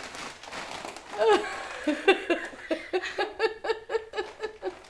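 A young woman laughing, a quick run of short pitched bursts, about four a second, after a sliding vocal exclamation about a second in.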